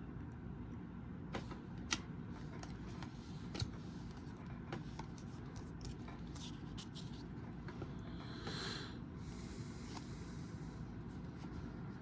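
Trading cards being handled and flipped through by hand: faint scattered clicks and a brief scrape about eight and a half seconds in, over a low steady room hum.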